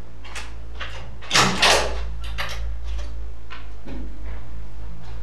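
Door and footstep sounds: a row of short knocks and taps about two a second, the loudest two close together about a second and a half in, over a steady low drone.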